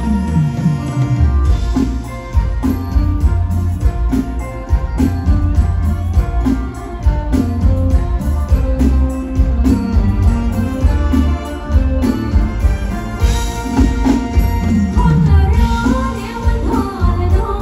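Live Thai mor lam band music played loud through a stage PA, with a steady heavy bass and drum beat, and a woman singing over it.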